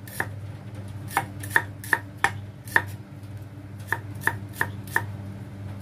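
Cleaver slicing shallots thin on a wooden chopping block: about ten sharp knocks of the blade striking the wood, in two quick runs with a pause of about a second in the middle.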